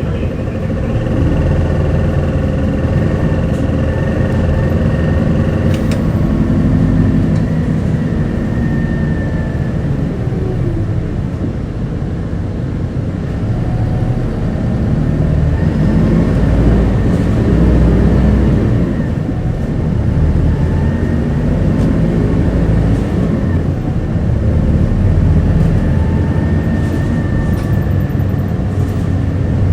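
Isuzu Erga city bus heard from inside the cabin, its diesel engine running through the gears as the bus speeds up and slows down in traffic, with the engine note rising and falling several times over road rumble.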